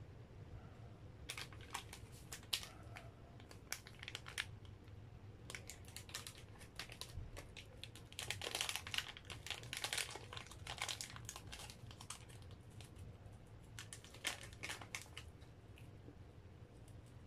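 Plastic-foil instant coffee sachet crinkling in the hands in irregular crackles, with a denser stretch of crackling about eight to ten seconds in as it is torn open.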